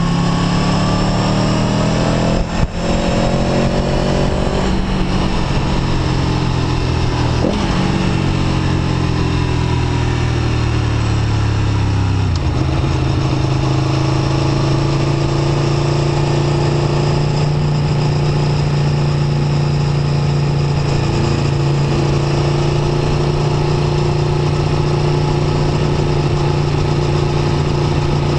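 Aprilia Tuono V4 1100 RR's V4 engine heard from onboard, revs rising for the first few seconds with a brief break about two and a half seconds in. The revs then fall for several seconds, and from about twelve seconds in the engine holds a steady note at constant revs.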